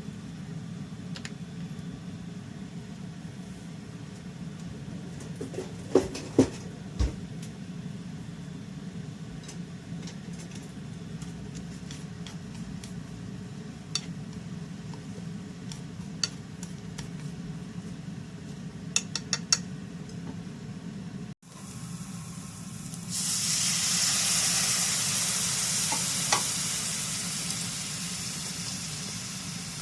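Stirring and scattered light clicks of utensils against cookware over a steady low hum. About two-thirds of the way in, after a sudden break, loud frying sizzle starts in a pan and slowly dies down.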